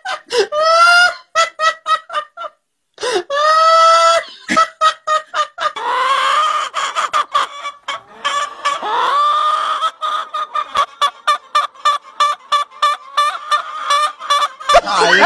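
Hen cackling: a fast run of short, repeated calls that grows denser from about six seconds in.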